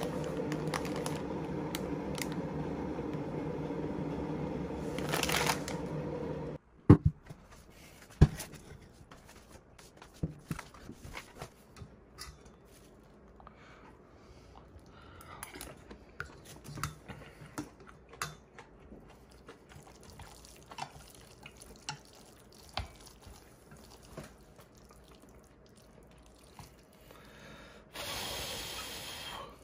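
A steady rushing noise that cuts off abruptly about six seconds in. Then two sharp knocks as a steel pot and bowl are set down on a plastic mat, followed by scattered light clinks and taps of dishes and utensils, and a short hiss near the end.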